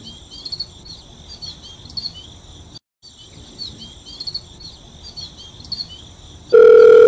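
Crickets chirping steadily with bird chirps over them, a nature-ambience track that cuts out briefly about three seconds in. Near the end a loud, steady beep-like tone starts.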